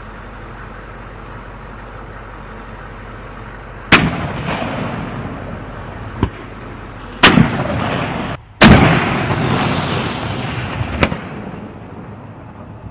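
120 mm semi-automatic mortar in a Patria NEMO turret on an AMPV firing: three loud shots a few seconds apart, each followed by a long rumbling echo, with two fainter bangs between them.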